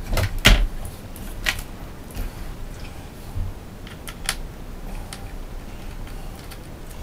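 A few sharp clicks and knocks from small objects being handled, the loudest about half a second in, with fainter ones spread through the rest.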